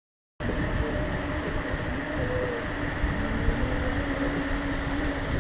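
Steady low rumbling background noise with a faint steady hum, starting abruptly after a brief cut to silence.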